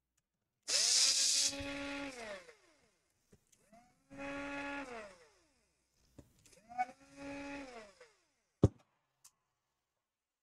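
Small electric screwdriver motor spinning up, running briefly and winding down three times as it backs out screws, followed by one sharp click near the end.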